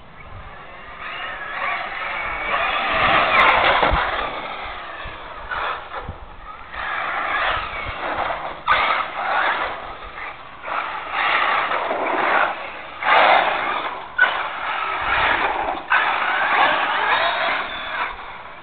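Team Associated 1:8 scale electric RC buggy running on a 6S LiPo pack: its brushless motor whines in repeated bursts of throttle, the pitch rising and falling as it accelerates and lets off.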